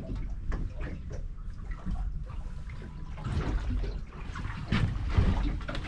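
Water lapping and sloshing against the hull of a small aluminium fishing boat, with scattered light knocks and clicks and a low wind rumble on the microphone.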